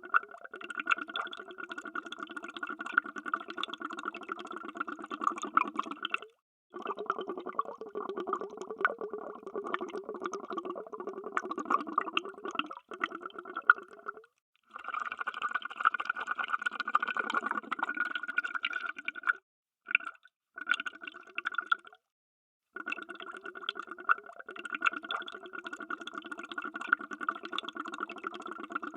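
Underwater bubbles: a dense, steady bubbling and gurgling of water, cut off by brief silences several times.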